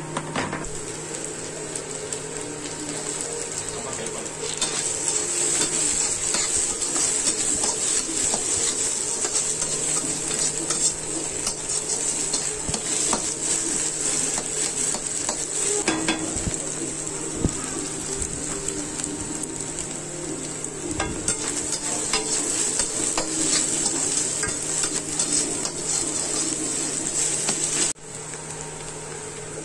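Chopped onions and garlic sizzling in hot oil in a pan while a metal spatula stirs and scrapes them, with scattered clicks of the spatula against the pan over a steady frying hiss.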